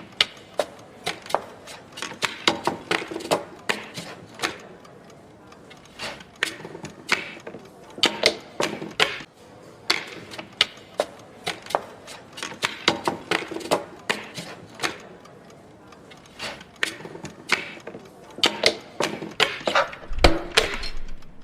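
A quick, irregular run of sharp clicks and taps, several a second with brief pauses, and a low thud near the end.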